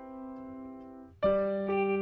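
Background piano music: a held chord fading away, then a louder new chord with a low bass note struck a little over a second in.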